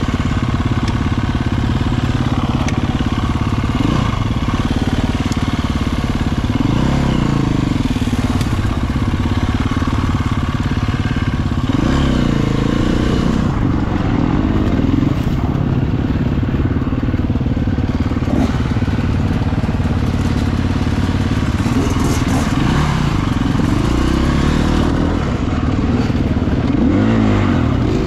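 Husqvarna FE 350 dirt bike's single-cylinder four-stroke engine running under load, its pitch rising and falling again and again as the throttle opens and closes.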